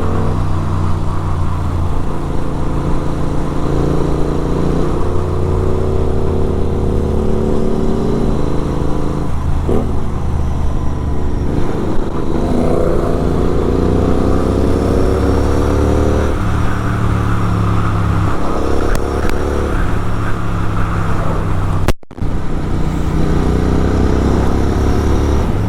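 Superbike engine with a full-system exhaust, heard riding along. Its note climbs slowly as it pulls and drops back at each shift, several times over. The sound cuts out for a moment about four seconds before the end.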